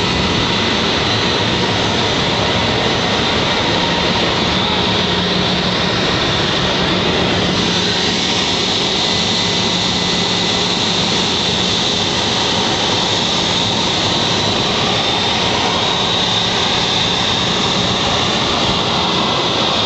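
Jet aircraft engine running steadily nearby: a loud, even rushing noise with a high, steady whine held over it.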